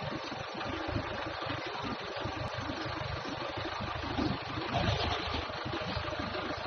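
Forklift engine running steadily as the forklift pushes a heavy wrapped machine into a shipping container.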